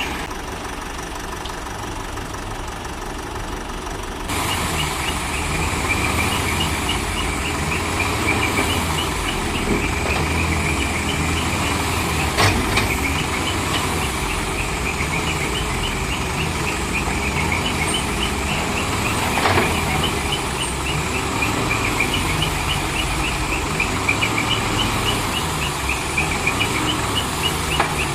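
Heavy diesel vehicle engine running steadily, growing louder about four seconds in, with a fast, high repeating chirp over it and two sharp clicks.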